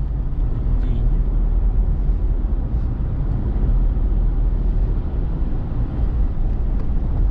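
Steady low rumble of a car on the move: engine and tyre noise heard from inside the cabin.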